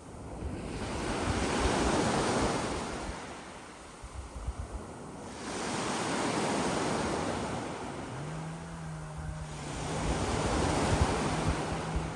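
Sea waves washing onto a sand and pebble beach: three swells of surf rise and fade, with wind buffeting the microphone. A low steady hum joins about eight seconds in.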